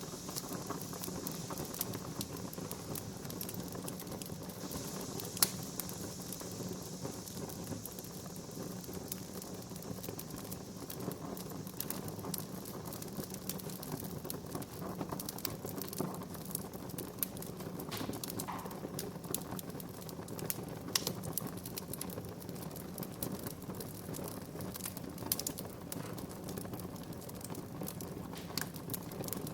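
Wood fire in a fireplace crackling, with frequent sharp pops and snaps over a steady low hiss. One pop about five seconds in is much louder than the rest.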